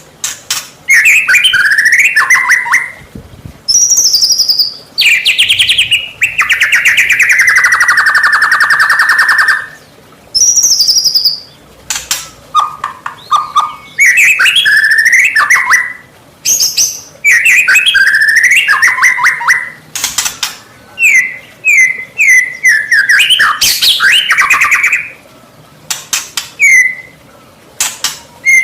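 White-rumped shama (murai batu) singing a loud, varied 'gacor' song of the kind played to provoke other shamas into answering. It goes in phrases of sliding whistles and quick chattering notes with short pauses between them, and one long fast buzzy trill that slides down in pitch about a quarter of the way in.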